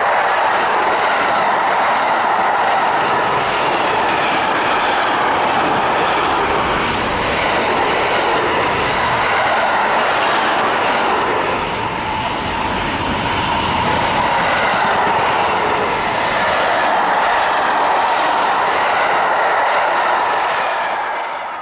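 Container wagons of a long freight train rolling past close by: a steady, loud running noise of steel wheels on the rails, with a wavering high wheel squeal running through it. The sound fades out quickly at the very end.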